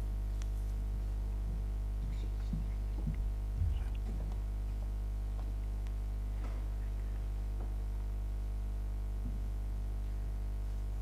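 Steady electrical mains hum in the audio feed, with a few faint knocks about three to four seconds in.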